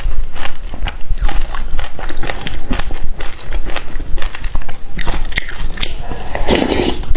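Passion fruit being bitten and chewed, the seeds crunching in many quick, sharp clicks, with a louder, longer noisy sound near the end.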